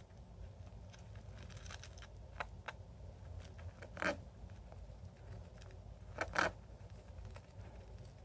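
Small pet rodent digging in shavings bedding in a plastic enclosure: faint scratching and rustling, with a louder crackling scrape about four seconds in and a quick pair a little after six seconds, over a low steady hum.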